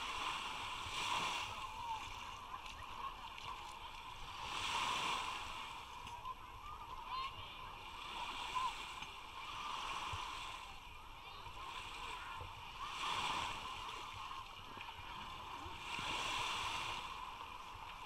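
Small waves washing onto a sandy shore, swelling and falling back about every three to four seconds, under a low hubbub of beachgoers' voices.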